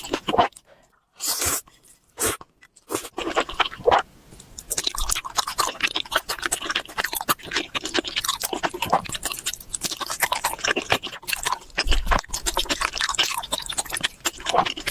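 Chewing and crunching chicken, close to the microphone: dense, irregular crackly crunches with a few short pauses in the first few seconds.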